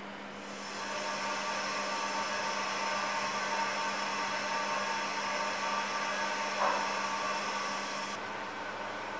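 Steady hiss of air rushing through a hyperbaric chamber's control-panel valve as the chamber is vented during staged decompression; the hiss thins out near the end. A low steady hum runs underneath.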